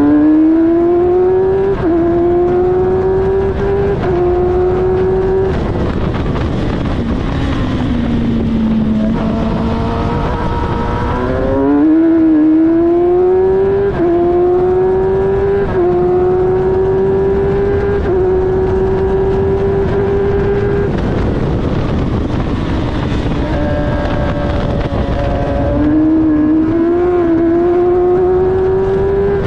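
Suzuki motorcycle engine of an F1000 single-seater racing car, heard onboard at race pace. The engine runs at high revs with quick upshifts, drops steeply in revs under braking with downshifts, then pulls up through the gears again, over constant wind and tyre noise.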